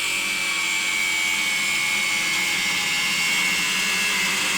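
Angle grinder working on steel, a loud steady high whine whose pitch sags slightly.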